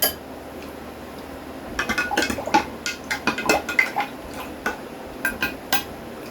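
Kitchen utensils clinking and knocking against dishes: a dozen or so irregular light clicks and clinks, a few with a short ring, bunched between about two and six seconds in.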